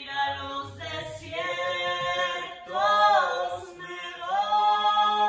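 Unaccompanied singing in long held notes, with short breaks between phrases.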